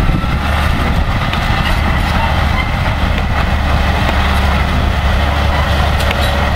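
Old crawler bulldozer's diesel engine running steadily as the machine crawls over loose soil, a deep, even drone.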